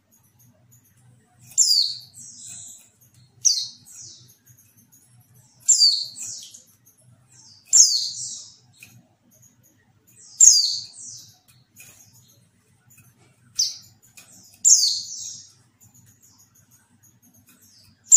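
Female white-eye (pleci) giving short, high chirps that fall quickly in pitch, about seven calls spaced irregularly about two seconds apart. This is a call used as a lure to set male white-eyes singing.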